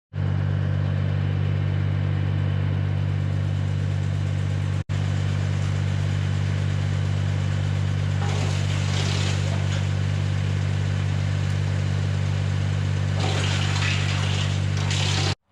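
BX52 PTO-driven wood chipper running off a tractor at steady speed: a constant low engine drone, with two spells of added harsh noise about eight and thirteen seconds in as wood is chipped.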